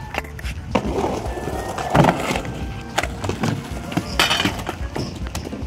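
Skateboard and inline-skate wheels rolling on a skatepark ramp, with several sharp clacks of boards and wheels hitting the ramp and its coping, over faint music.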